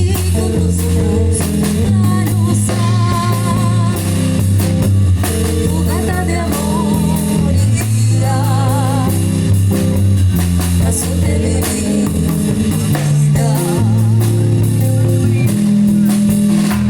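A band playing a song in a passage without lyrics: guitar and drum kit over a steady bass line, with a lead melody line that wavers in pitch.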